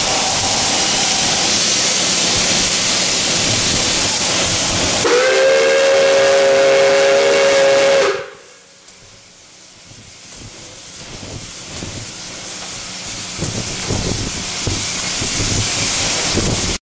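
Steam hissing loudly from the Lima 2-8-4 locomotive Pere Marquette 1225, then its steam whistle sounds for about three seconds as a chord of several close tones over the hiss. Whistle and hiss stop abruptly together, leaving a much quieter rumble with scattered knocks.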